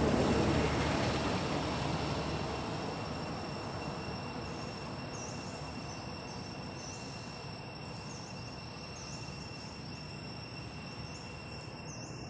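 A steady, high-pitched insect drone runs throughout. A broad rushing noise is loud at the start and fades away over the first few seconds. Faint short chirps repeat through the rest.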